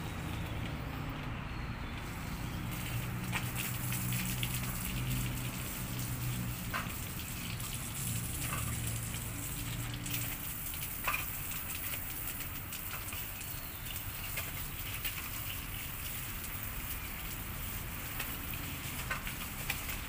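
Water from a garden hose spraying and splashing onto a wire bird cage and the concrete under it, a steady gushing hiss with a few sharp ticks of water hitting the mesh, as the cage is hosed clean.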